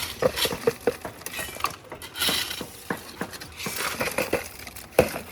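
Metal hand tools clinking and scraping on a concrete job: a string of short knocks, with a longer rough scrape about two seconds in.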